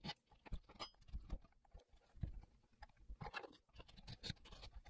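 Faint, irregular taps and short scrapes of hand-tool work on plywood: a saw blade and a plastic jig being set against and worked along the board's edge.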